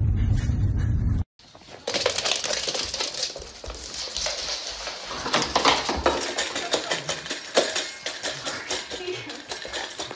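Low rumble inside a moving car, cut off about a second in. Then a dog eating kibble from a stainless steel bowl: a fast, irregular run of crunches and clicks of the metal bowl.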